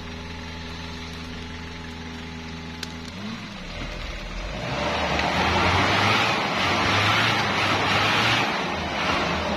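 Small 4x4's engine climbing a steep muddy rutted trail: a steady engine note at first, then about four seconds in it revs hard and gets much louder and rougher as the wheels spin in the mud.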